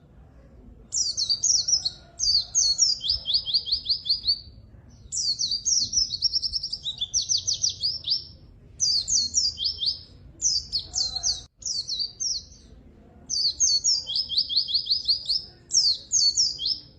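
A pleci (white-eye) singing vigorously: bursts of high, quick, down-slurred notes that run into rapid trills, in phrases of one to three seconds with short pauses between them.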